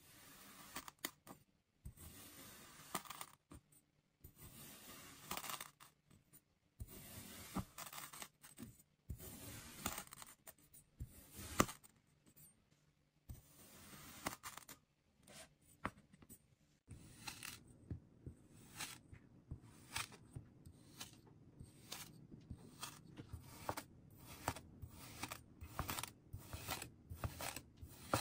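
Kinetic sand being cut and pressed, with soft crunching strokes of a second or two each. About halfway through these give way to a quicker run of short, crisp cuts, roughly two a second.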